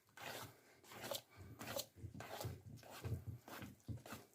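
Homemade glue-and-boric-acid slime being stirred and worked by hand. It makes a faint, uneven series of short soft strokes, about two or three a second.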